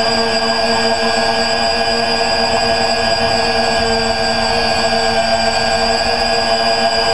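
X580 quadcopter's electric motors and propellers whining steadily in flight, heard from the camera mounted on its frame: several steady tones that waver slightly in pitch, over a rushing noise.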